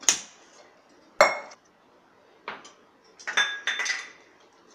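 A metal spoon clinking against a stainless steel mixing bowl during stirring, several separate clinks. The loudest, about a second in, rings briefly, and a quick cluster of ringing clinks comes about three and a half seconds in.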